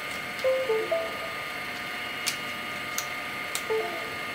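A few sharp clicks from an SD card being handled in a laptop's card slot, over a steady high electrical whine, with a few short soft tones.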